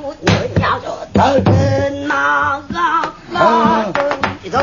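Pansori singing: a woman's voice holding long, wavering notes with heavy vibrato, accompanied by sharp strokes on a buk barrel drum.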